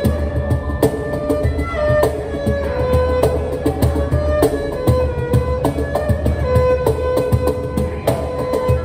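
Erhu playing a melody of held notes with slides between them, over a cajon beat of low bass thumps and sharper slaps struck by hand. Improvised duet.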